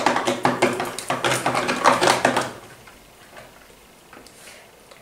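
Slime of glue and shaving cream being mixed by hand in a plastic tub: a quick, irregular run of clicks and knocks that stops about two and a half seconds in.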